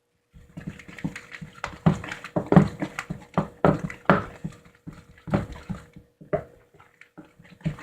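Runny homemade slime being stirred fast by hand in a bowl: a quick, irregular run of wet squelches and slaps.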